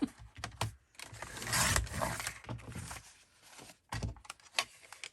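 Sturdy white paper being cut in half: a noisy stretch about two seconds long, then a few sharp taps and clicks near the end as the paper and tools are handled.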